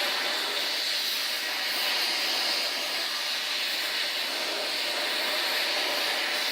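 Oxy-fuel torch flame burning with a steady hiss while it heats a bent piece of steel toward cherry red for straightening.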